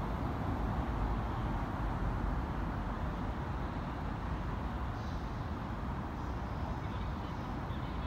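Steady low rumble of city and railway background noise, with no single event standing out.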